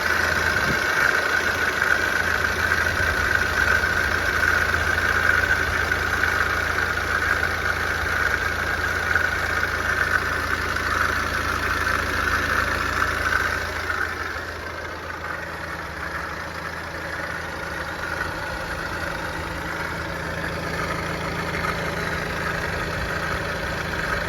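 BMW N47 diesel engine idling with a steady high-pitched noise from the front of the engine, the sign of a failing belt-driven coolant pump. About halfway through, the noise fades and the sound grows quieter.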